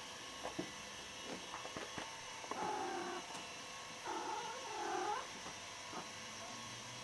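Cat calling twice while the cats play, two drawn-out calls of about a second each that bend up and down in pitch, after a few faint clicks.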